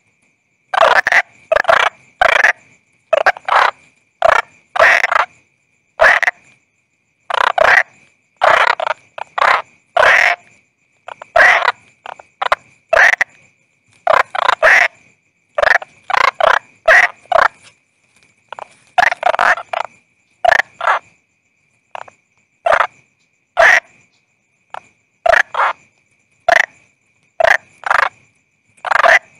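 Frogs or toads croaking: short calls repeated irregularly, often in quick runs of two or three, with brief gaps between runs. A faint, steady high tone runs underneath.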